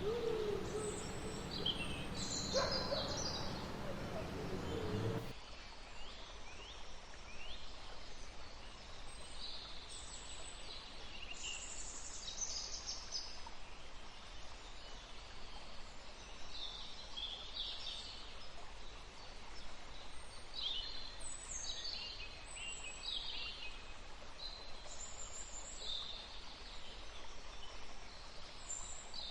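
Sampled forest ambience: scattered bird calls over a steady hiss. In the first seconds a drawn-out low howl tails off, and about five seconds in the background changes abruptly as the layered track shifts.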